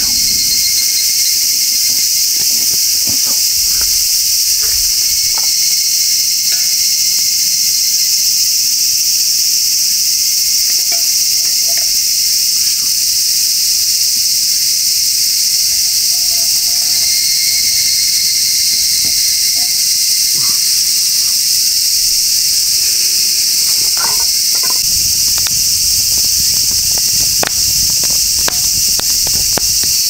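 Loud, steady, high-pitched chorus of insects that runs on without a break, with a few faint clicks and knocks scattered through, a small cluster of them near the end.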